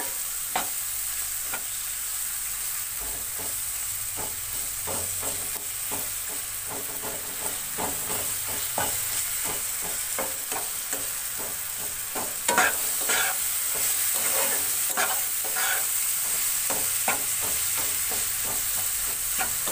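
Onions, tomatoes and spices sizzling in oil in a non-stick kadai while a spatula stirs and scrapes them, the curry's masala base frying. A steady sizzle under repeated scraping strokes, which grow louder and more frequent about two-thirds of the way through.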